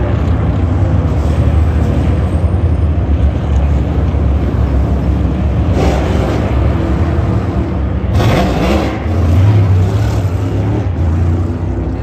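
NASCAR Cup Series stock cars' V8 engines running loud on the track, with a car passing close about six seconds in and another, louder and rising in pitch as it speeds up, about eight seconds in.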